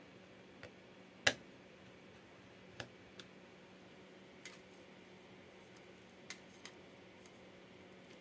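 Scattered light clicks and ticks of a precision screwdriver and tiny screws against a Redmi phone's frame as screws are driven in, several in all, the sharpest a little over a second in, over a faint steady hum.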